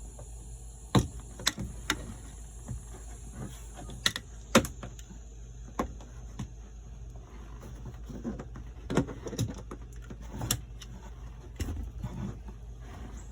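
Irregular sharp clicks and taps of a razor blade cutting and working the edges of a plastic switch blank out of a Polaris Ranger dash panel, over a steady low hum.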